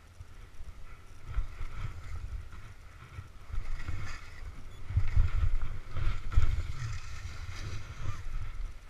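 Skis swishing and scraping through tracked snow during turns, with wind buffeting the helmet-camera microphone as a low rumble. It grows louder from about a second in and is loudest past the middle.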